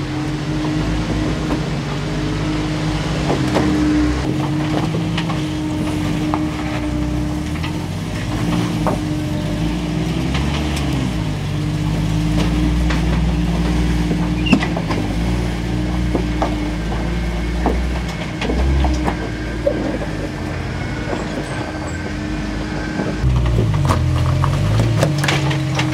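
Rock-crawling Jeeps' engines running at low speed and revving up and down as they climb over boulders, with scattered knocks and scrapes of tyres and underbody on rock.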